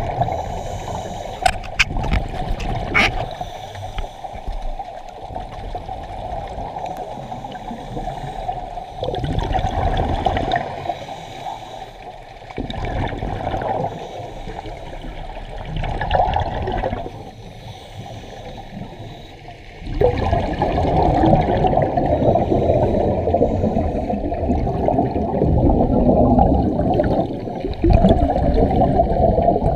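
Scuba regulator exhaust bubbles bubbling and gurgling past an underwater camera. They come in loud stretches of a few seconds, one for each breath out, with quieter gaps between, then run almost unbroken through the last ten seconds.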